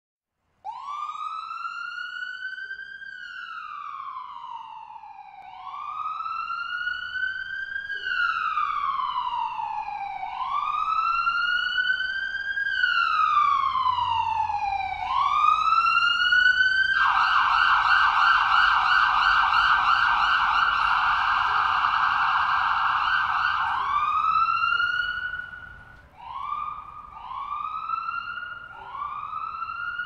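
Ambulance siren in slow wail, rising and falling about every five seconds and getting louder. About halfway through it switches to a fast yelp for several seconds, then returns to shorter rising whoops near the end.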